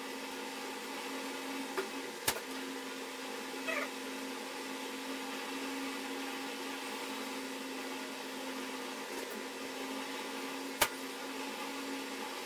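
A steady hum with several level tones. Two sharp clicks, about two seconds in and near the end, come from hands working on a standing fan's capacitor wiring.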